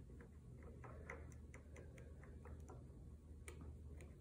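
Near silence with faint, quick ticks of a watercolour brush tapping and dabbing paint onto paper, about four or five a second, over a low steady hum.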